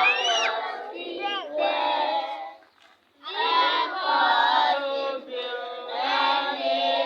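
A large group of schoolchildren singing together, many voices at once. The singing stops for a moment about three seconds in, then starts again.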